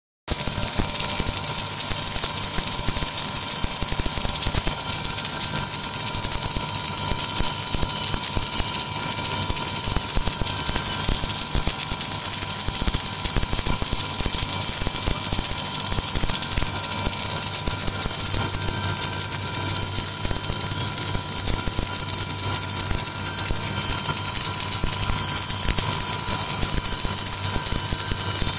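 Submerged arc welding equipment running steadily while it lays a filler pass on a circular joint: a constant hiss with a low hum and a steady whine underneath.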